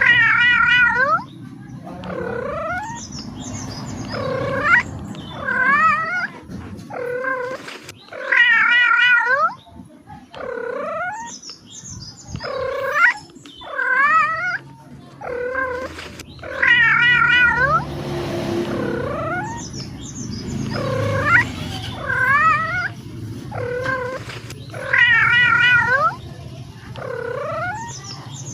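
Domestic cat meowing over and over: short meows every second or two alternating with longer, wavering yowls. The same run of calls repeats about every eight seconds.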